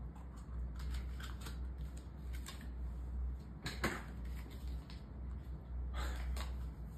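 Scattered light clicks and taps over a low steady hum.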